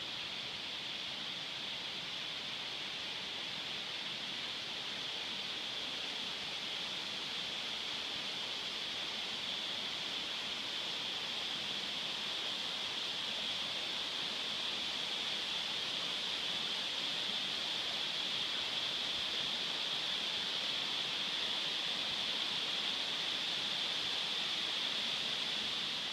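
Steady rushing hiss of a waterfall and its stream, growing slowly louder.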